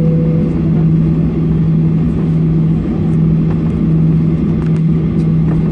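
Steady drone of a Boeing 737's jet engines and rushing airflow heard inside the passenger cabin in flight, a constant low hum with a steady tone in it. A brief soft tone ends in the first half second.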